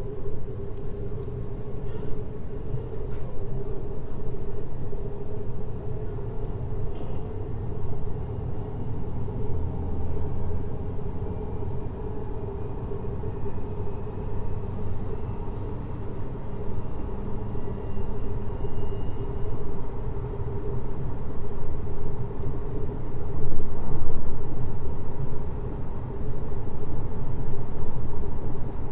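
Running noise of a JR Hokkaido 733 series electric multiple unit: a steady rumble of wheels on the rails with a humming tone. A faint whine rises in pitch through the middle, and the noise swells briefly near the end.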